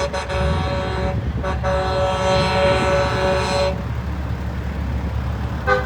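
Semi-truck's train horn blowing two blasts, a short one and then a longer one of about two seconds, over the low rumble of truck engines.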